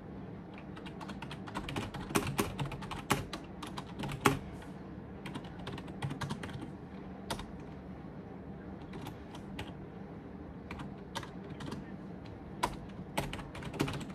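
Typing on a computer keyboard: quick runs of key clicks, busiest about two seconds in and again near the end, with scattered single keystrokes between.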